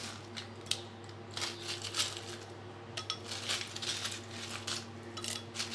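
Ice cubes clinking against a glass blender jar as they are dropped in, in scattered irregular clicks.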